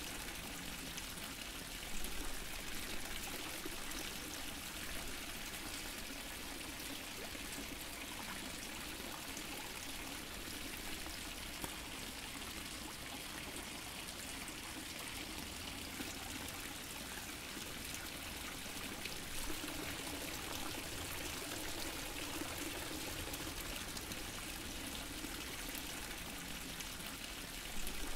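Fountain water splashing and trickling steadily, with a brief louder splash about two seconds in and another near the end.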